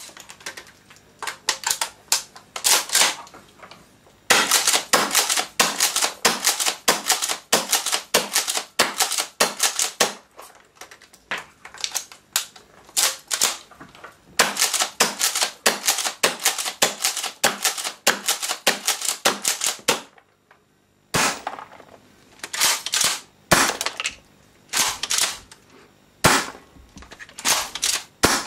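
Tokyo Marui M870 gas-powered airsoft shotgun being pumped and fired over and over: quick runs of sharp clacks and pops, with a short break about twenty seconds in.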